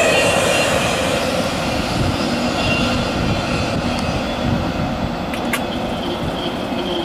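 Double-stack container train's well cars rolling past: a steady rumble of steel wheels on rail, with faint high wheel squeal now and then and a single brief clank about five and a half seconds in.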